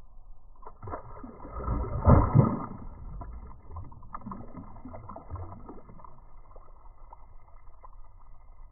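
Muffled wind and choppy water knocking against a kayak, with a louder rush about two seconds in.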